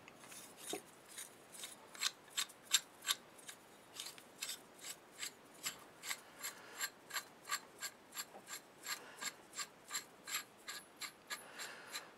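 Threaded steel drawbar tube being screwed by hand into a steel collet chuck: metal threads rasping in short, even strokes, about three a second.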